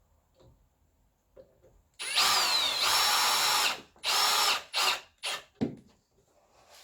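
Power drill driving a screw: one long run, then three or four short bursts that get shorter as the screw seats. The motor's whine dips and recovers during the first run.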